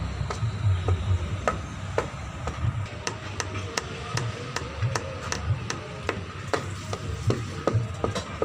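Hands striking bamboo, a run of sharp, hollow knocks at about two or three a second mixed with softer low thuds, in a loose percussive rhythm.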